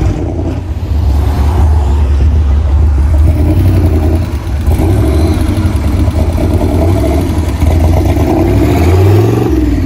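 A hot-rod coupe's exposed engine running with a loud, deep rumble as the car creeps forward, with a short rev that rises in pitch near the end.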